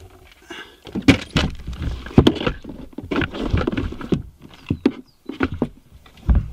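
Kayaks being loaded onto a car's roof: a run of irregular knocks, bumps and rattles, with a heavier thump near the end.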